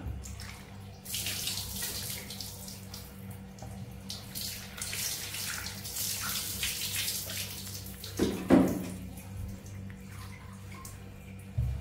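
Water splashing and pouring in a small bath, with many small splashes, and a short, loud squeak about two-thirds of the way through.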